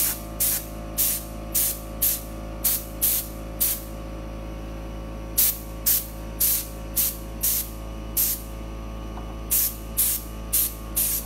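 Paint sprayer run off an air compressor, hissing in short trigger pulls about two a second, with a couple of pauses of a second or so. Under it a steady, even hum runs throughout.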